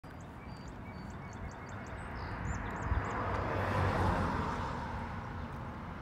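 Lakeside outdoor ambience: a broad rushing noise with a low rumble underneath, swelling to a peak about four seconds in and then easing off, with a run of thin, high chirps in the first half.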